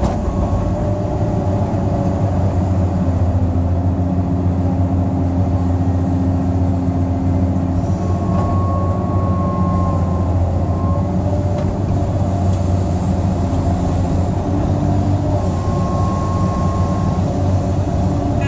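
Cat 385C L excavator's C18 diesel engine and hydraulics running steadily under load while digging and loading dirt, heard from inside the cab, with a deep, constant hum. A thin high whine comes in twice, in the middle and near the end.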